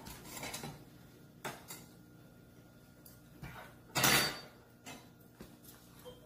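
Metal chopsticks and spoons clicking against dishes at a meal table, short scattered clicks and knocks. About four seconds in comes the loudest sound, a noisy half-second sip of soup from a spoon.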